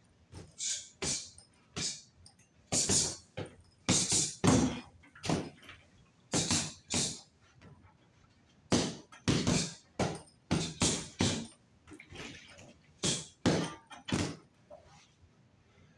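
Bare fists punching a free-standing Everlast vinyl punching bag: about twenty sharp smacks in quick combinations of two or three, with short pauses between, stopping shortly before the end.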